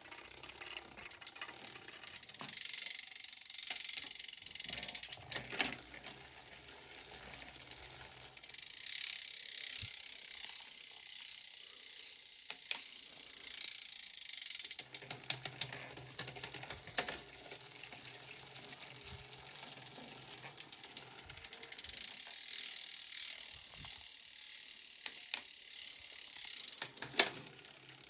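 Shimano Ultegra drivetrain on a Trek Emonda road bike: the chain running over the cassette with a steady whir while the gears are shifted, a sharp click at each shift, several times. The front derailleur is a little out of tune.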